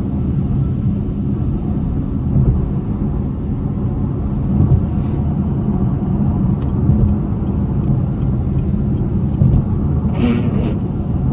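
Car engine and road noise heard from inside the cabin while driving: a steady low drone with an even engine tone. There is a brief higher-pitched noise about ten seconds in.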